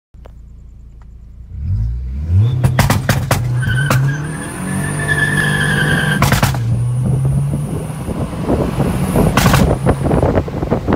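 Turbocharged four-cylinder engine of a stroked 2.0 L Audi A3 8L on a K03 turbo and E100 ethanol. It idles, is revved up at about a second and a half, and crackles with pops and bangs on the anti-lag launch limiter. It then pulls away under full throttle with a high turbo whistle, and a sharp bang comes with each flat (no-lift) upshift, about six seconds in and again near the end.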